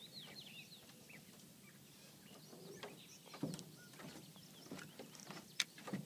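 Birds chirping and calling faintly in the background, with a few scattered clicks and knocks, the sharpest near the end.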